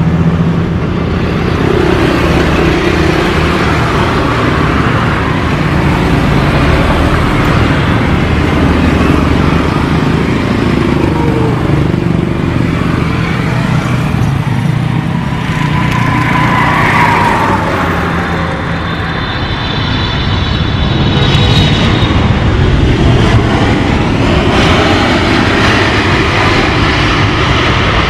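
Jet engines of a landing Boeing 777 twin-engine airliner, a loud, steady rumble on approach and rollout, with a short rising whine about two-thirds of the way through.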